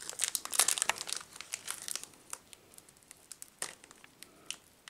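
Foil wrapper of a Pokémon card booster pack crinkling and crackling as fingers work at its sealed top edge, struggling to tear it open. A dense run of crackles over the first two seconds or so thins to a few scattered ones.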